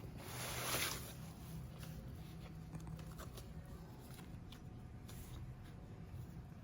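Handling sounds of a bag and its packaging being unboxed: a brief rustle that swells and fades about a second in, then faint light taps and rubbing.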